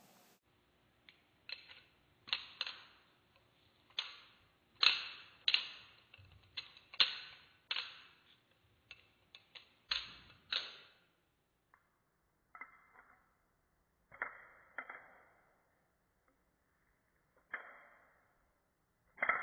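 Benchmade 42 balisong with titanium handles being spun and rolled through a trick, its handles clicking and clacking against each other and the blade in an irregular run of sharp metallic clicks that ring briefly. The clicks come thick and bright at first and grow sparser and duller in the second half.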